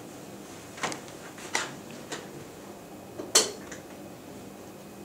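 Handling noise from a handheld OTDR and plastic containers being moved about on a tabletop: a few short clicks and knocks, the loudest about three and a half seconds in.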